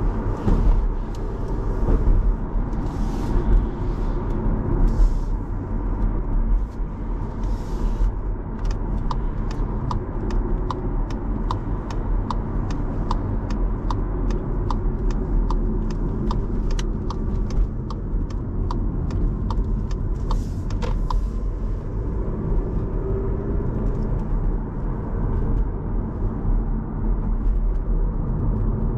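Skoda Kamiq 1.0 TSI on the move: steady low engine and road rumble. Through the middle part a turn-signal indicator ticks evenly, about one and a half ticks a second, then stops.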